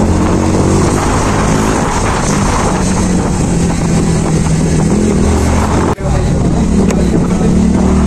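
Motorcycle engine running steadily while riding, heard from the rider's own bike, with wind rushing over the microphone. The sound drops out for an instant about six seconds in.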